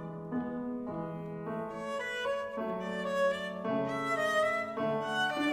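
Bowed string music: held notes in several parts at once, changing about every half second to a second and slowly growing louder.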